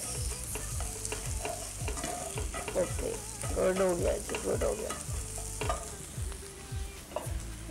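Spatula scraping and tapping against a frying pan while scrambled eggs are stirred and broken up, with hot oil sizzling underneath. The strokes come steadily, about two or three a second.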